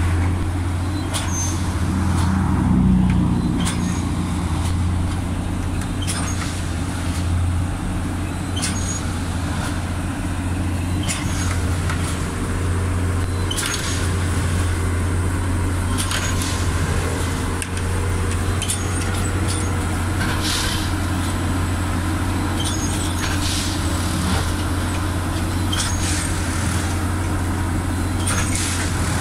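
Multiple tie tamper, a track maintenance machine, at work: its diesel engine runs with a steady low drone, and sharp metallic knocks come every second or two.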